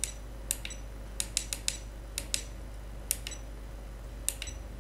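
Small push buttons on an FPV goggle's True-D receiver module being clicked repeatedly: about ten sharp clicks in uneven groups, some in quick succession, as it is stepped into its search and calibration menu.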